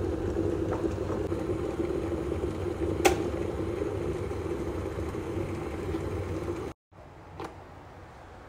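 Stainless-steel electric kettle rumbling as the water comes to the boil. Its switch clicks off about three seconds in, and the boiling sound carries on until it cuts off suddenly near the end.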